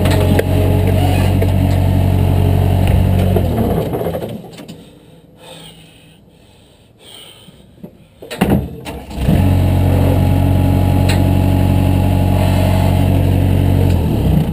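An engine running steadily shuts off about four seconds in; after a few quiet seconds it is started again, catching after a brief crank about eight seconds in, runs steadily, then shuts off again just before the end.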